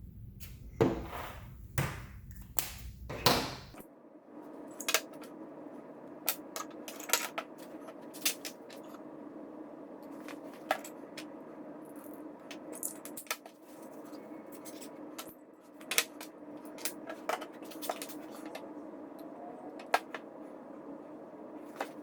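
Irregular light clicks and knocks of small hard objects being handled, loudest in the first few seconds, over a steady low hum.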